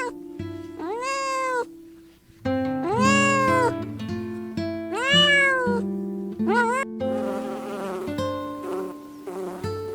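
Four drawn-out animal calls, each rising and then falling in pitch, over background music; in the last few seconds a rough buzzing takes over.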